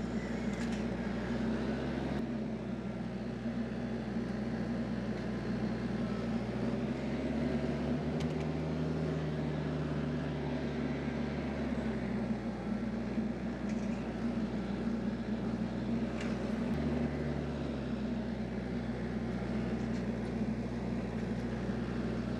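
A TYM T474 tractor's diesel engine running steadily, its note changing a few times as engine speed or load shifts.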